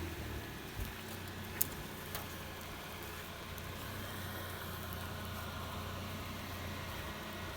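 Car engine running slowly with a steady low hum as the car is driven at a crawl, with one sharp click about one and a half seconds in.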